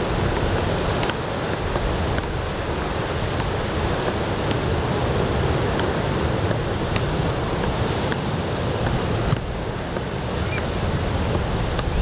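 Ocean surf from a typhoon swell washing steadily onto a sandy beach, with wind buffeting the microphone.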